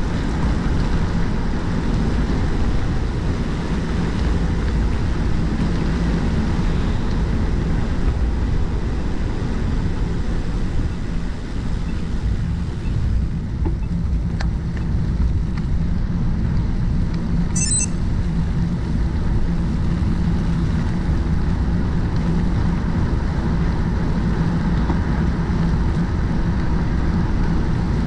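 Steady wind rush on a bike-mounted action camera's microphone, mixed with the rolling hum of the bicycle's tyres while riding. A brief high-pitched chirp about 18 s in.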